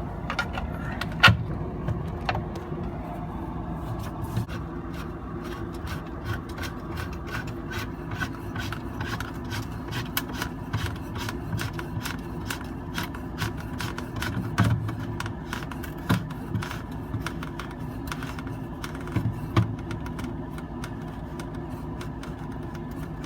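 Plastic refrigerator panel and parts being handled and fitted: a run of clicks, taps and rubbing, with a few louder knocks, over a steady low hum.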